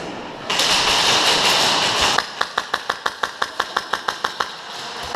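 A loud hiss for about a second and a half, then an airsoft gun firing a fast string of shots: sharp regular cracks at about six a second.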